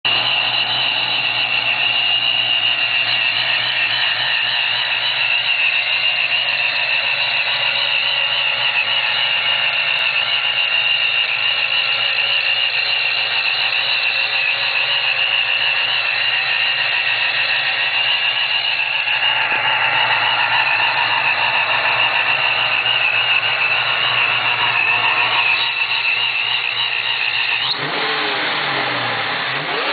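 Supercharged 1995 Saleen Mustang V8 idling with a steady high-pitched whine over the engine note, then revved near the end.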